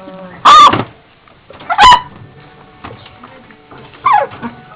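A dog barking: three loud, sharp barks, about half a second in, near two seconds and just after four seconds, with faint music underneath.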